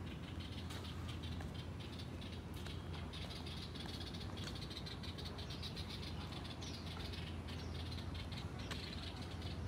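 Cicadas chirping in a chorus of fast, even pulses, over a low steady hum.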